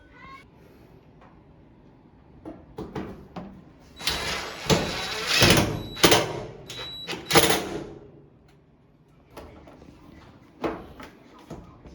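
Metal dryer parts being handled during reassembly: scattered clicks and knocks, with a loud stretch of scraping and sliding from about four to eight seconds in, broken by a few sharp hits.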